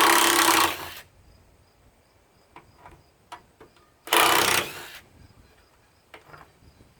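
Cordless impact driver hammering, two bursts of about a second each, at the start and about four seconds in, loosening bolts on an electric lawn mower that a drill would not turn. Faint clicks and knocks of handling between the bursts.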